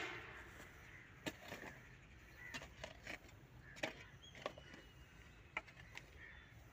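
Short-handled hoe chopping and scraping at dry, stony grave soil: a string of faint, sharp knocks, about eight in all, spaced irregularly.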